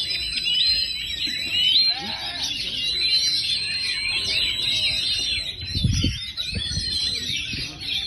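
Several caged songbirds, among them an oriental magpie-robin (kacer), singing over one another in dense, rapid chirps and whistled glides. A couple of low thuds come about six seconds in.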